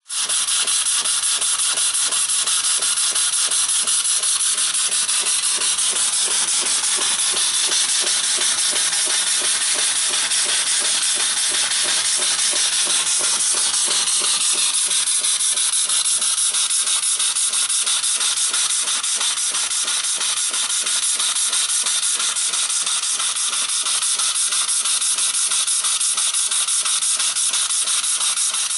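Small home-built steam engine running fast, its rapid exhaust puffs blurring into a steady hissing buzz.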